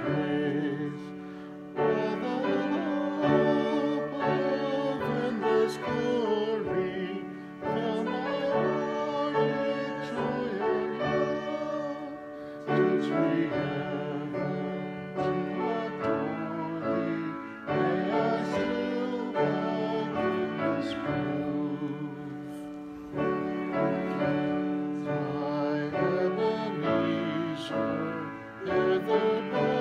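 Slow classical-style music: a singing voice with vibrato over instrumental accompaniment, moving in phrases of a few seconds each.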